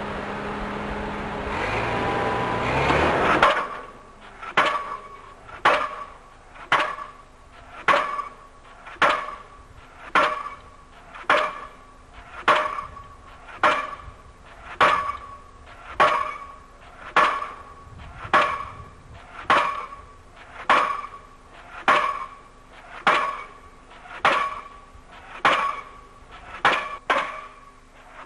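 Diesel pile hammer on a crane's leader driving a pile: after a few seconds of machinery running up, the hammer fires and strikes about once a second in an even rhythm, each blow a sharp clang with a ringing tail.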